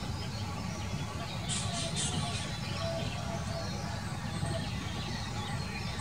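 Birds calling, with three short bright chirps in quick succession about a second and a half in, over a steady low rumble.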